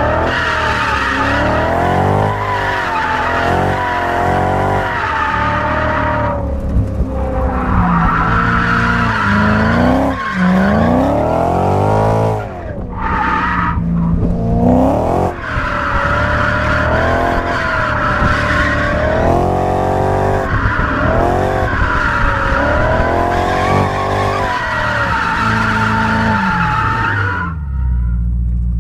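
BMW E92 M3's V8 engine revving up and down over and over through a drift, with tyres squealing, heard from inside the cabin. Near the end the squeal stops and the engine settles to a low rumble.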